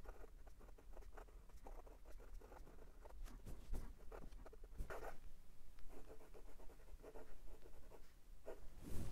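Kanwrite Heritage fountain pen's #6 steel medium nib writing on lined notepad paper: a run of soft, short scratching strokes of cursive handwriting, with brief pauses between words.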